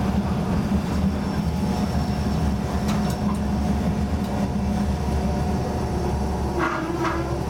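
Diesel railcar's engine idling steadily as the train stands at a station, heard from inside the cab. There are a couple of short clicks near the end.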